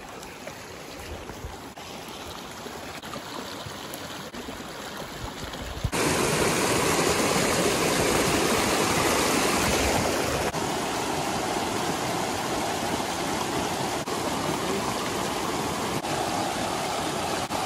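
Rushing mountain stream, a steady wash of water that gets suddenly louder about six seconds in.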